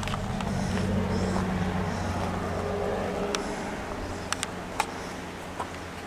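A low, steady engine hum, swelling over the first second or two and then easing off, with a few sharp clicks between about four and five seconds in.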